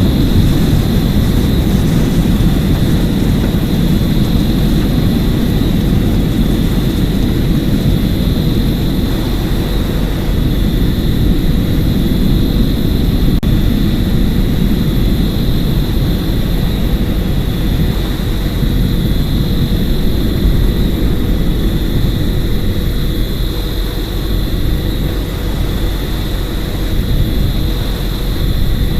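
Steady low rumbling noise with a faint high whine held on one pitch.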